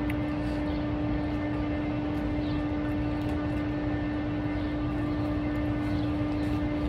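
Steady mechanical hum holding one unchanging pitch over a low rumble, with a few faint light clicks.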